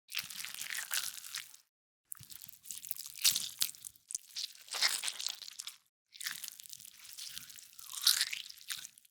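Flesh-and-blood gore sound effects: four separate crunching effects, each a second or two long, cut off by silence between them.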